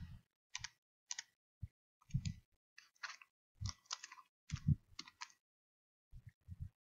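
Keys tapped on a computer keyboard while typing a word: about a dozen separate, irregular keystroke clicks, some in quick pairs, with short silent gaps between them.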